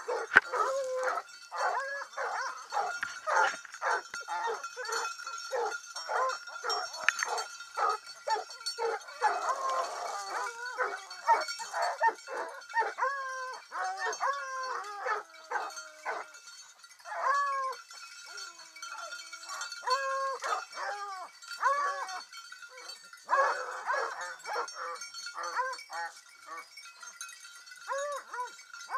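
A pack of hunting hounds barking and baying at once, many voices overlapping, some calls drawn out into howls: the pack holding a bay on a freshly killed wild boar. A steady high ringing tone runs under the barking.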